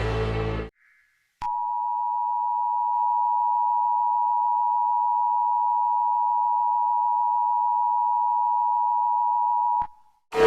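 An earlier alarm sound cuts off within the first second; after a short gap, a single steady electronic emergency-alert tone of about 1 kHz sounds unbroken for about eight seconds, starting and stopping abruptly.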